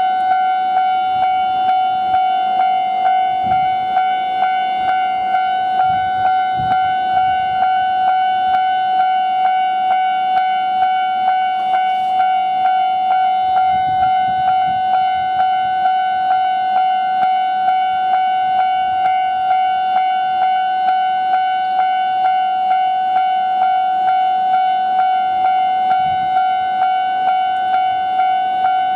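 Japanese railway level-crossing warning alarm ringing: a steady, high electronic ding repeating evenly without a break, the signal that a train is approaching the crossing.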